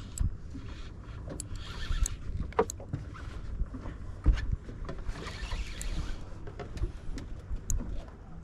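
Spinning reel being cranked to retrieve a cast lure, whirring in two spells with light clicks, over a steady low rumble of the boat.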